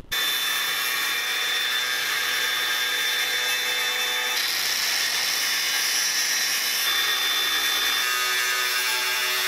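Angle grinder with a thin cut-off wheel cutting through the end of a metal pulley's hub held in a vise: a steady high whine over the hiss of the cut. The sound shifts slightly about four seconds in and again near eight seconds.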